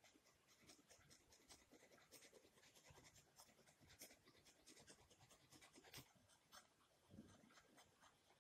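Faint scratching of a pencil on paper: quick, repeated shading strokes.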